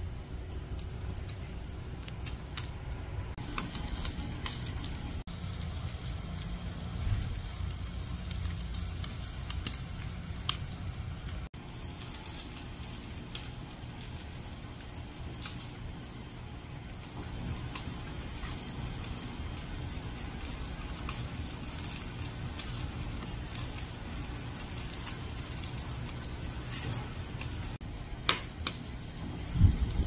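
Meat sizzling on a charcoal grill grate while burning hardwood charcoal and small firewood crackle with scattered sharp pops, over a steady low rumble. A single loud thump comes near the end.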